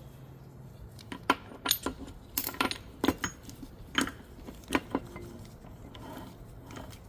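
Steel manual-transmission parts (gears, washers, synchros) clinking against each other as they are handled and fitted onto a shaft: a quick run of about a dozen sharp metallic clinks, most between about one and five seconds in.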